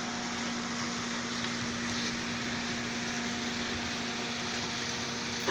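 Steady mechanical hum: a constant low drone with a fainter higher tone over an even hiss, unchanging throughout.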